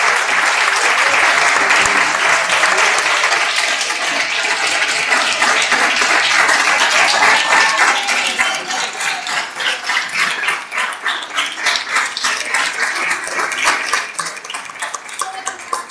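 Audience applauding: dense clapping that thins after about eight seconds into scattered individual claps and fades near the end.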